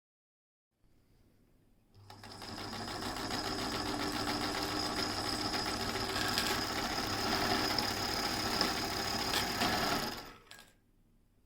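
Singer 99K electric sewing machine running at speed. It picks up about two seconds in, runs steadily with a fast mechanical rattle for about eight seconds, then stops. A faint low hum comes before it starts.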